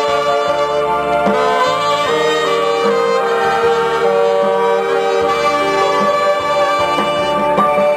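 Live band music led by a saxophone playing a sustained melody over a bass line and band accompaniment.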